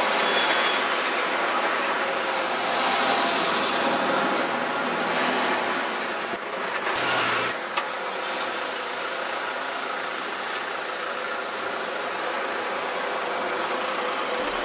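City street traffic: a steady wash of car and engine noise, with one sharp click about eight seconds in.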